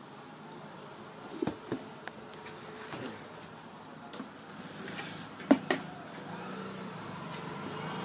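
Scattered handling clicks and knocks against a home theater cabinet, the loudest about five and a half seconds in, over a faint steady background noise.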